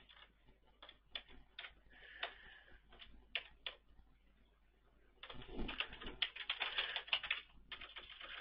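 Computer keyboard typing: single keystrokes tapped one at a time for the first few seconds, a short pause, then a fast steady run of key clicks.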